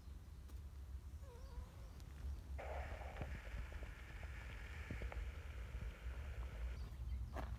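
Outdoor ambience with a low wind rumble on the microphone and a faint, brief cat meow about a second and a half in. A steady hiss comes in partway through and drops out near the end, followed by a short sharp sound.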